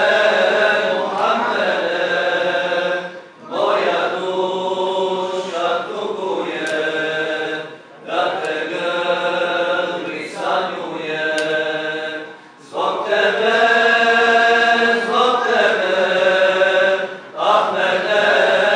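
Unaccompanied voices singing a Bosnian ilahija (Islamic devotional hymn) as a chant, in held phrases a few seconds long with short breath pauses between them.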